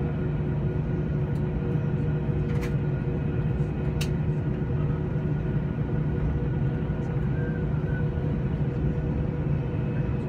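Airbus A320 jet engines at taxi power heard inside the cabin: a steady low rumble with a few steady tones on top. Two sharp clicks come about two and a half and four seconds in.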